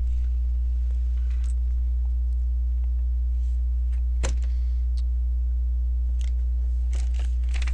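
Steady low electrical hum, with a few clicks of plastic LEGO bricks being handled and pressed together; the sharpest click comes about four seconds in.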